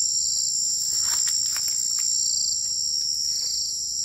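A steady, high-pitched chorus of crickets and other night insects.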